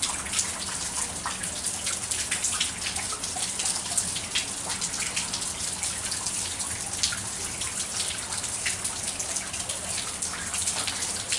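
Steady rainfall, a continuous hiss with many separate drops ticking sharply on nearby surfaces.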